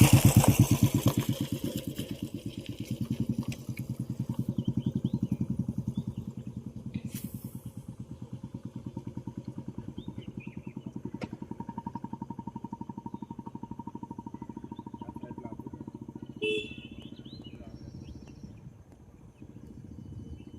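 A small engine running with an even, fast beat. It is loudest at the start, swells again a few seconds in and fades away over the last few seconds, like a motor passing by.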